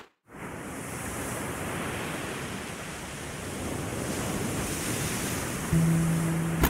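Waves washing and breaking on a shore, a steady rush of surf with some wind. About a second before the end a low sustained musical note comes in as the song's introduction begins.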